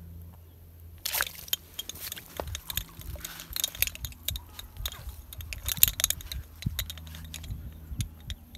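A hooked fish being hauled out of the pond through floating water hyacinth: a busy run of splashing and crackling, rustling leaves that starts suddenly about a second in and thins out toward the end.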